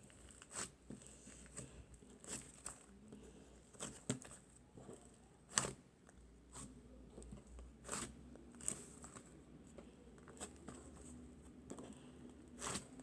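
Chocolate slime being squished and pressed by hand, giving irregular small clicks and pops.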